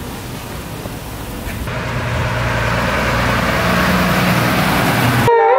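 Street traffic noise, with a motor vehicle's engine hum and tyre noise growing louder from about two seconds in as it comes closer. Just before the end the sound cuts abruptly to a wailing siren rising and falling in pitch.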